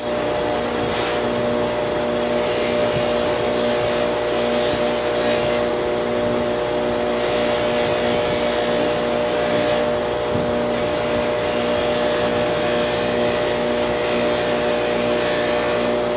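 Electric buffing wheel running with a steady hum and whir while a folding knife's handle is polished against it with compound.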